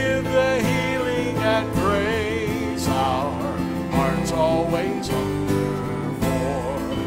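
Live worship band music from drum kit, acoustic guitar, electric bass and keyboard, with a wavering melody line over steady low notes.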